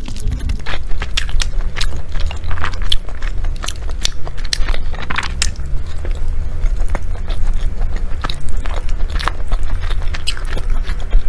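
Close-miked chewing and biting of a savory meat glutinous rice dumpling (zongzi), with many small irregular mouth clicks over a low steady hum.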